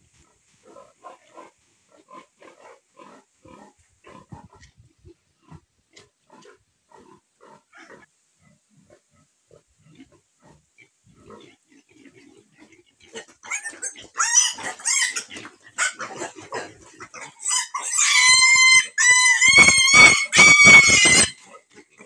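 Piglets grunting faintly, then, a little past halfway, a piglet squealing loudly as it is caught by hand. The cries build into long, high-pitched screams that are loudest near the end.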